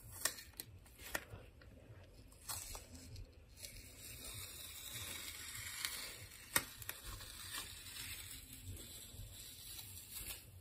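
Blue painter's tape being slowly peeled off the edge of watercolour paper: a few light ticks at first, then a steady crackly peeling sound that builds for several seconds and ends in a sharp snap as the strip comes free, followed by soft handling of the paper and tape.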